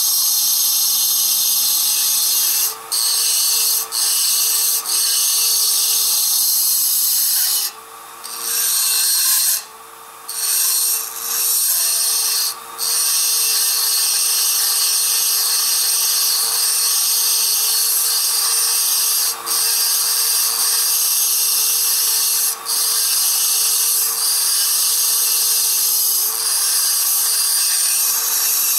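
Flexible-shaft rotary tool running a double-cut burr against the steel of a Stihl MS660 chainsaw muffler, grinding the muffler's opening out to match the enlarged exhaust port. A steady high grinding hiss over the motor's whine, broken by short pauses, with a longer break about eight to ten seconds in.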